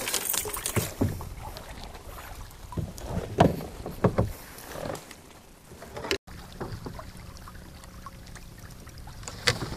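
Irregular knocks and rustling of handling aboard a small fishing boat. After an abrupt cut about six seconds in, a faint steady low hum runs under light water and wind noise.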